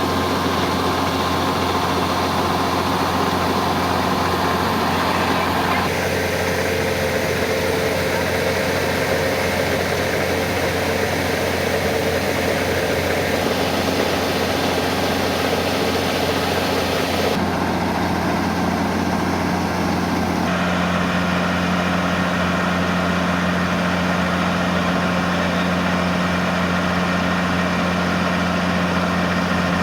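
Kubota farm machine's engine running steadily at a constant speed. Its tone shifts abruptly a few times.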